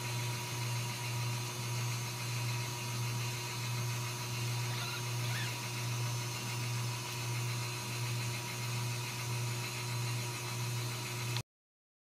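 A steady low hum that pulses a few times a second over background hiss, with a couple of faint high squeaks from the newborn kittens about five seconds in. The sound cuts off abruptly near the end.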